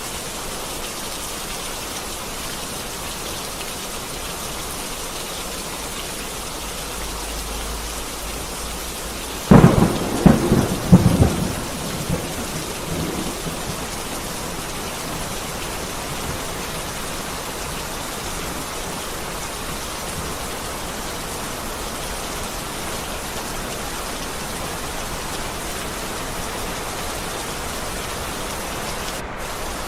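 Heavy rain falling steadily. About a third of the way in, a sudden close thunderclap cracks and rolls in several loud peaks for about three seconds before fading back under the rain.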